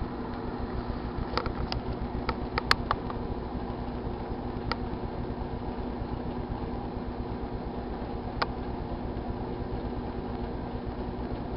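GE Dual Wave microwave oven running with a steady hum. A few sharp pops or clicks sound over it, several in the first three seconds and two more later.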